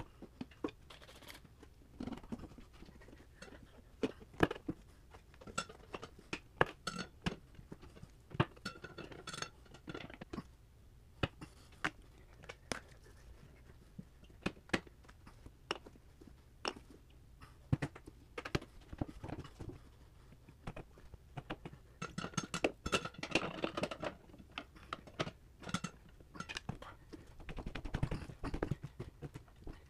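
A motorcycle front tire being worked onto its metal wheel rim by hand. Irregular clicks and knocks against the rim, with bursts of scraping and rubbing about two-thirds of the way through and near the end.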